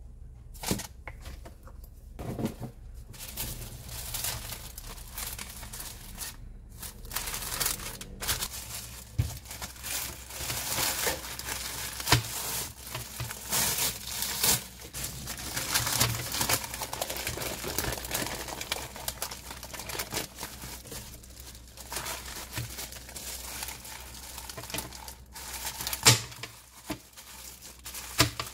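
Plastic wrap, parchment paper and disposable plastic gloves crinkling and rustling as hands handle and press on a slab of frozen Greek yogurt bark, in irregular crackly bursts. A sharp crack near the end as the frozen slab is broken apart.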